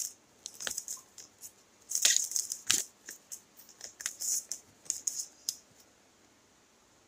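Paper leaflet and cardboard box handled by hand: scattered rustles and crinkles of paper with a few light knocks, busiest about two to three seconds in, then quiet for the last second or so.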